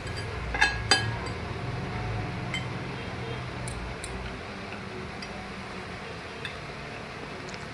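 Metal fork and spoon clinking and scraping against a plate while eating: two sharp clinks about a second in, then lighter scattered taps.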